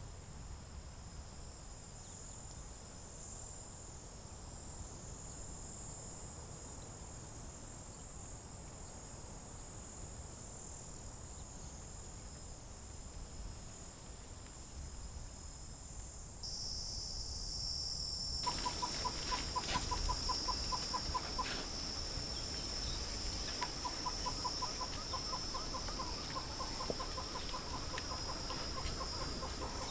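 Outdoor bush ambience: insects chirring steadily at a high pitch. A little over halfway through, the background changes abruptly and a bird's rapid run of repeated notes comes in twice.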